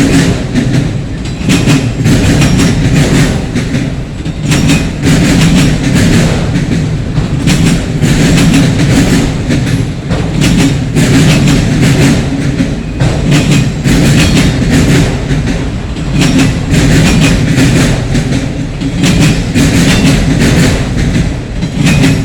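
Freight cars of a CSX train rolling past close by: a loud steady rumble with wheels clacking over rail joints, swelling and dipping every couple of seconds as each car goes by.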